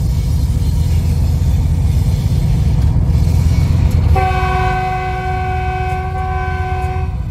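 GE U20 diesel-electric locomotive's engine chugging loudly, heard from the loco's side walkway. About four seconds in, the locomotive's horn sounds one long multi-tone blast of about three seconds, then stops.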